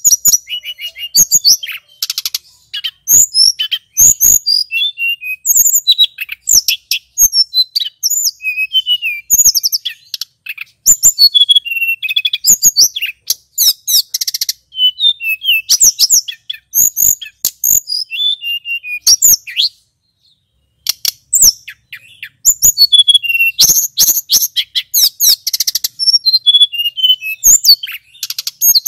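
Male tledekan gunung, a blue flycatcher, singing a fast, varied, high-pitched song of whistles, trills and rapid chattering notes. The song breaks off for about a second some twenty seconds in, then resumes.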